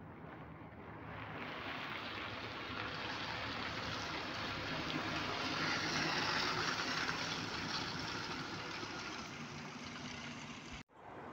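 Scania articulated city bus pulling away and driving past close by, its diesel engine hum and tyre noise swelling as it passes and then easing off as it turns away. The sound cuts off suddenly near the end.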